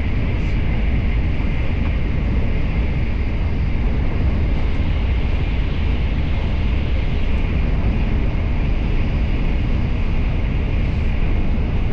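Steady running noise of a train heard from inside the carriage: a constant low rumble with a hiss above it, unchanging throughout.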